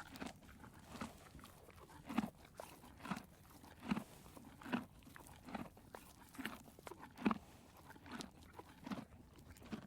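A horse grazing: faint, rhythmic crunching chews, a bit more than one a second.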